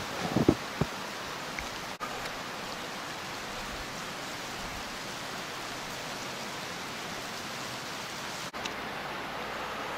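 A steady, even outdoor hiss, with a few soft low thumps in the first second. The hiss breaks off for an instant twice, about two seconds in and near the end.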